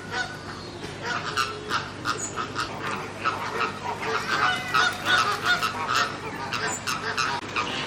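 Many birds calling together, a run of short honking calls, one after another and overlapping.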